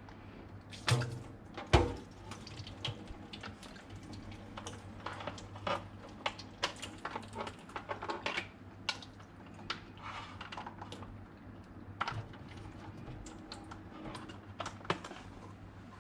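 Irregular light clicks and taps of small parts being handled while a booster pump's switch setup is swapped, with two louder knocks about a second in, over a faint steady low hum.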